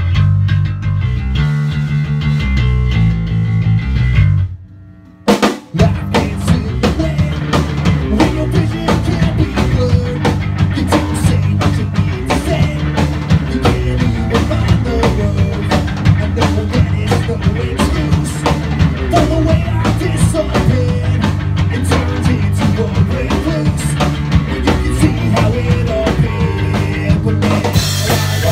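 A band playing live in a practice room: electric guitars and a drum kit. About four seconds in the band stops short for a moment, with a single hit in the gap, then comes back in with driving drums.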